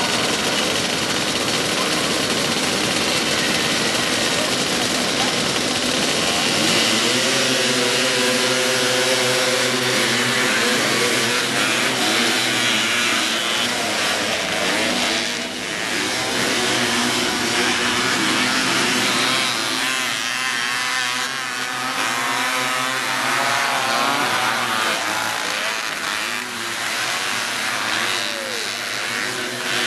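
A pack of Honda Odyssey and Pilot off-road buggies racing on a dirt track, several engines running together, with engine notes rising and falling in pitch from about twenty seconds in as the buggies rev and pass.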